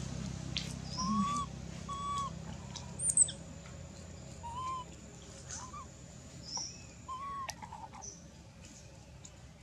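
Infant macaque giving short, rising-and-falling coo calls, repeated every second or two, the distress calls of a baby calling for its mother. Faint high bird chirps sound alongside, with a brief sharp click about three seconds in.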